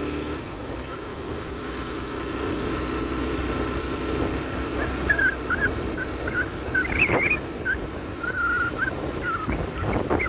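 Yamaha AG125's two-stroke single-cylinder engine running steadily while riding along a gravel lane. From about halfway, a string of short high chirps, with a couple of sharp knocks, one around two-thirds of the way in and one near the end.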